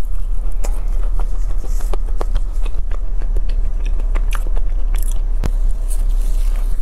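Close-miked biting and chewing of a flaky-crusted egg tart, with scattered small crackles as the pastry breaks, and a second bite near the end. A steady low hum runs underneath.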